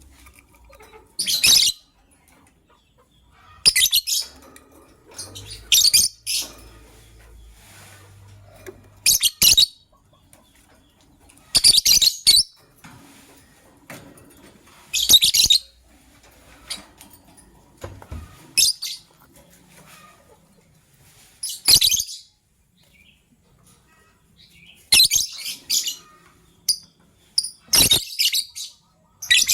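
Lovebird chirping in short, shrill bursts, repeated every two to three seconds.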